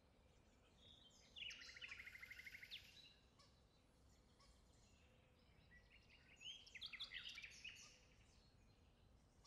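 Faint birdsong over quiet outdoor background noise: two bursts of rapid chirping trills, one about a second and a half in and another around six to seven seconds in.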